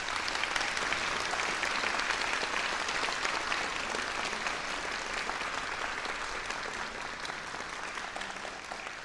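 Audience applauding at the close of a performance: dense, steady clapping that tapers off slightly toward the end.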